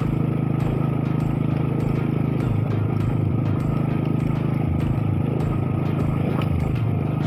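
Motorcycle engine running steadily at low speed as the bike wades through floodwater.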